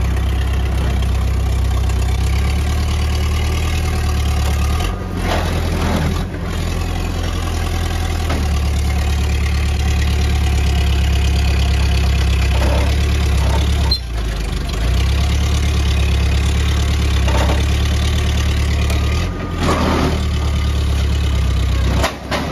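Forklift engine running steadily under the operator's seat, dipping briefly in level about five times as the lift is worked.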